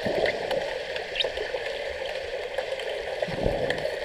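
Underwater sound in a swimming pool during an underwater hockey game: a steady watery hiss with a few faint clicks, and a low thud about three and a half seconds in.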